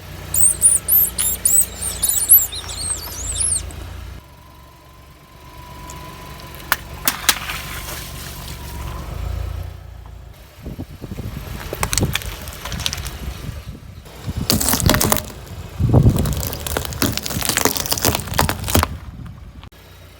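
Things crushed under a car's tyre: clusters of cracking crunches and wet squelches, the loudest in the second half. High squeaking comes at the start, and a steady high tone runs for a few seconds in the middle.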